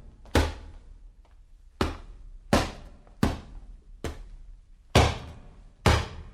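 Boxing punch sound effects: seven separate, sharp hits, roughly one a second, each with a short fading tail; the one about four seconds in is weaker than the rest.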